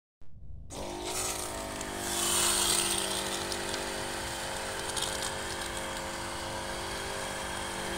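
Motorised crop sprayer running steadily as it pumps, with the hiss of spray from the lance nozzle, loudest about two to three seconds in.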